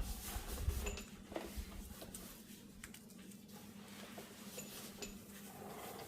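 Light clicks and taps of small carburetor parts being handled and fitted together by hand, with a few soft knocks in the first two seconds. A steady low hum runs underneath.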